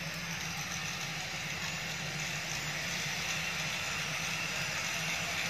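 A steady engine idling with a constant low hum and an even hiss over it.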